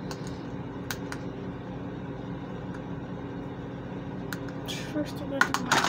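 Makeup powder compact and containers being handled: a few light clicks and taps, then a quick cluster of louder clicks near the end, over a steady hum.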